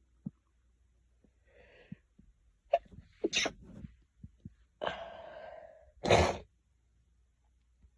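Sneezing: a few short sharp catches around three seconds in, a drawn-out breath leading up, then one loud sneeze about six seconds in.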